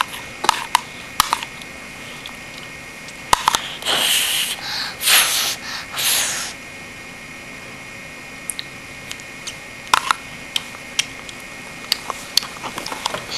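Light clicks and taps from a plastic measuring spoon, and a run of breathy puffs from a toddler about four to six seconds in.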